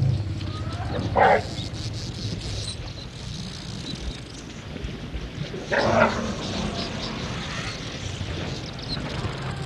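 African elephants calling: two short, loud, rough calls, one about a second in and another about six seconds in, over a low steady hum.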